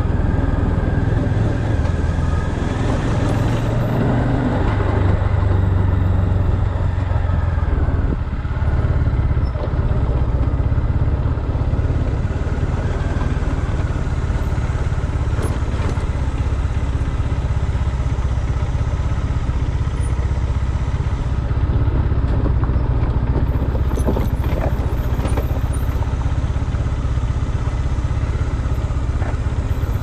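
Bajaj Dominar 400's single-cylinder engine running steadily at low road speed, heard from on the motorcycle, with a brief dip in engine sound about eight seconds in.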